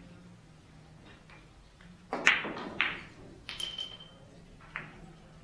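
Billiard balls clicking during play: a run of sharp clicks from the cue and the balls striking, the loudest about two seconds in. A short ringing ping follows a little later, and a fainter click comes near the end.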